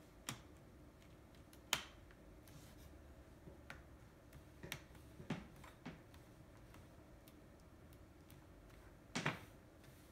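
Plastic screen bezel of an HP Envy laptop being pressed onto the display lid, its clips snapping into place in about six sharp clicks, the loudest about two seconds in and near the end.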